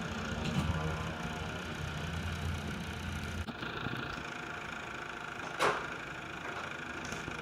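Distant propeller aircraft engine droning steadily, cutting off suddenly about three and a half seconds in; a single short knock a couple of seconds later.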